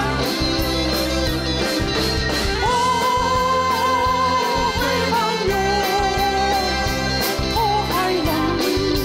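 Group singing of a Taiwanese pop song over a band backing track with a steady beat. A voice holds a long note near the middle.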